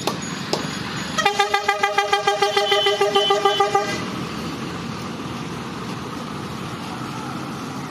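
A vehicle horn sounding in a rapid series of short toots, about six a second, for nearly three seconds. It then gives way to steady road traffic noise as a bus drives past.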